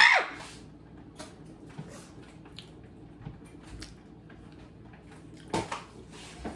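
A person sneezing once right at the start, a loud burst with a falling vocal cry. Then soft wet chewing and small mouth clicks while eating, and a short sharp breath through the nose about five and a half seconds in.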